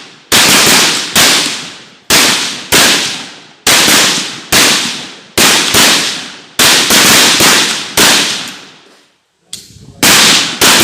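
Rifle fire on a firing range: single shots in an irregular string, about one or two a second, each a loud crack with a long echoing tail. There is a short gap about three-quarters of the way through.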